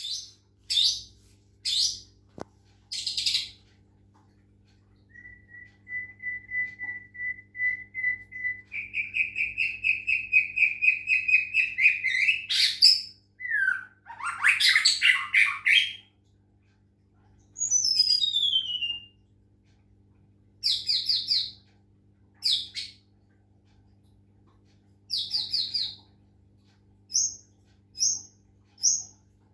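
White-rumped shama (murai batu) singing a varied song: sharp calls, a long trill that speeds up and rises in pitch, downward-sliding whistles, and short repeated chirps near the end. A faint steady low hum lies underneath.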